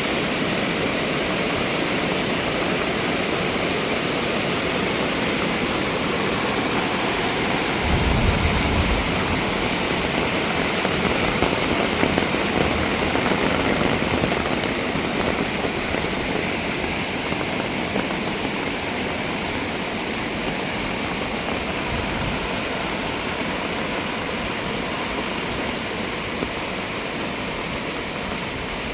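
Mountain stream running high after heavy rain: a loud, steady rush of water, with a brief low rumble about eight seconds in.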